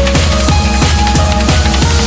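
Background music: electronic track with a heavy bass line, synth notes and a steady drum beat.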